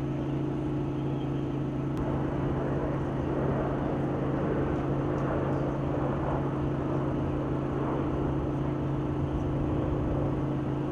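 Steady low mechanical hum over outdoor background noise.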